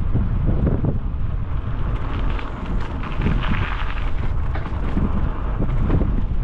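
Wind buffeting the microphone of a helmet-mounted GoPro while cycling: a dense, gusty low rumble throughout. A brighter hiss swells in from about two seconds in and fades about three seconds later.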